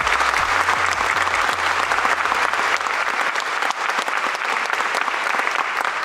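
Audience applauding in a large hall, a dense, steady clapping that begins to ease off near the end.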